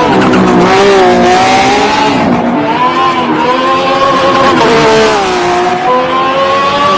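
Race car engine sound effect, revving with its pitch rising and falling several times, then cutting off suddenly near the end.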